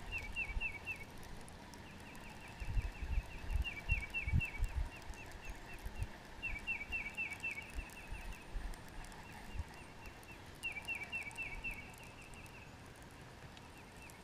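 A songbird singing: rapid trills of short, repeated downward-slurred notes, each song about two seconds long, repeated four times with pauses between. Low irregular thumps and rumbles sit beneath in the first half.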